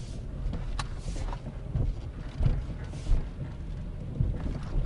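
Nissan Leaf electric car driving, heard from inside the cabin: steady low tyre and road rumble with a few short low thuds from the front suspension. The driver suspects worn stabilizer (sway bar) links, since a new ball joint has not cured the noise.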